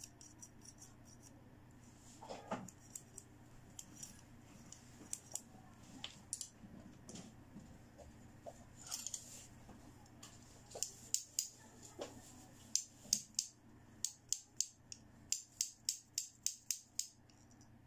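Pink plastic toy scissors from a doctor play set worked by hand, their plastic blades and handles clicking. Scattered clicks at first, then a quick run of clicks, about three or four a second, through the second half.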